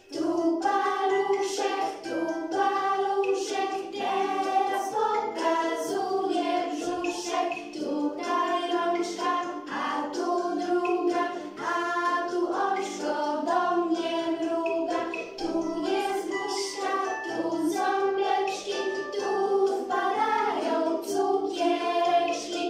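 A group of voices singing a children's finger-play song in unison over a light instrumental backing, at a steady level with no breaks.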